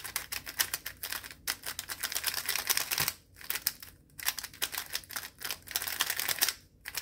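Brand-new Guoguan Yuexiao Pro 3x3 speedcube turned fast by hand on its first turns out of the box: rapid runs of plastic clicking and clacking as the layers snap round, broken by several brief pauses.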